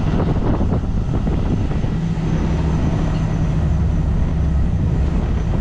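Off-road ranch buggy running, a steady loud low rumble.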